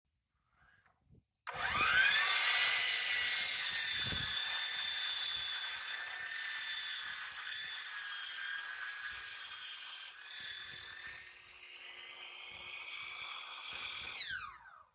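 Hercules 12-inch chop saw motor starting about a second and a half in with a rising whine, then its blade cutting into a 6x6 wooden post, a steady high whine over sawing noise. It winds down with a falling whine near the end.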